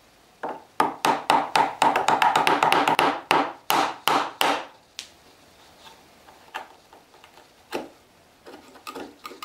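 Chisel driven with a mallet, chopping a narrow slot in a wooden strip: a fast run of sharp knocks, about four or five a second, for some four seconds. After that come scattered lighter taps and clicks of the chisel working in the wood.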